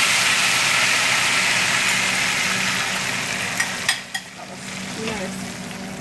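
Cooked beans poured into plenty of hot oil in a skillet, sizzling loudly as they start to refry. The sizzle fades and drops off about four seconds in, after a couple of sharp clinks, to a quieter frying.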